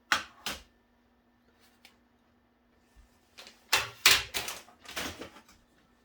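Hard parts knocking and clattering as they are handled: two sharp knocks at the start, then a burst of rapid clattering knocks about four seconds in.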